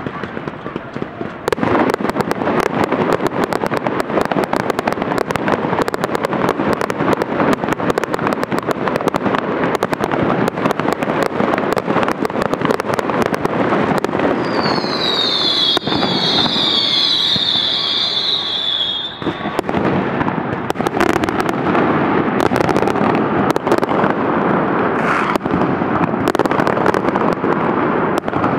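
Large fireworks display: shells bursting in a rapid, continuous string of bangs and crackle. About halfway through, a cluster of high whistles falling in pitch runs for several seconds over the bursts.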